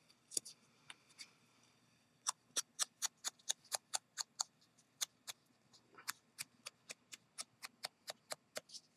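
Quick light taps of an ink sponge dabbing ink onto a small punched paper piece, about four to five taps a second, with a short pause midway.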